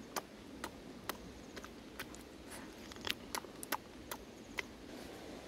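A person chewing chicken feet and taro: scattered small lip smacks and mouth clicks at an irregular pace, over a faint steady hiss.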